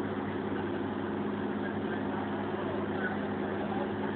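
Passenger boat's engine running with a steady, even drone, heard from inside the crowded passenger cabin.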